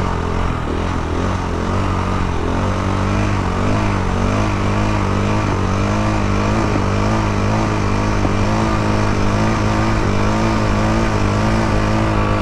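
Motorcycle engine held at steady revs through a long wheelie, its pitch wavering slightly as the throttle is worked.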